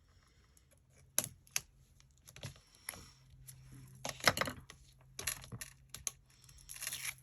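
Irregular small clicks, taps and crinkles of hands handling foam adhesive pieces and their release paper: peeling backing and pressing layers together on the work table.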